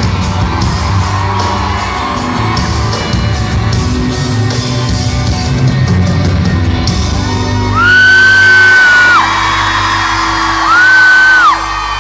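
A live pop-rock band plays the final bars of a song, with steady drum and cymbal hits, and stops about seven seconds in. A fan close by then screams twice, each a long, high, held scream and the loudest sound here, with fainter screams from the crowd behind.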